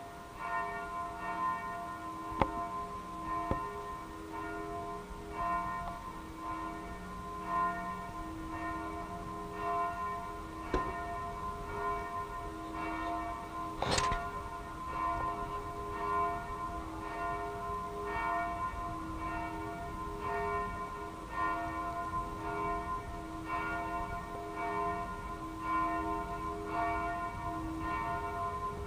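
Church bells of the Cathedral of Sts Peter and Paul in Osijek, starting right at the beginning and ringing on in a steady run of strikes. Several tones come and go as the strikes overlap, and a single sharp knock cuts through about halfway.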